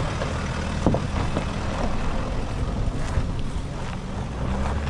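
Two-wheel-drive Sprinter van driving over a rough off-road track. The engine hums steadily, and a few short knocks and rattles come from the bumps, the sharpest about a second in.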